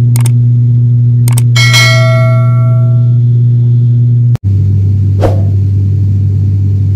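Steady low drone of the ATR 72-600's turboprop engines and propellers heard inside the cabin. A couple of clicks and then a cabin chime ringing and fading out about two seconds in; after an abrupt cut a little past halfway, the drone carries on at a lower pitch.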